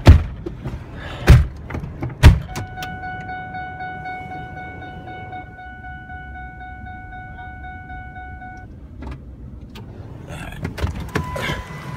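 Three heavy thumps about a second apart, then a steady electronic warning tone from a vehicle for about six seconds, with a short higher beep near the end.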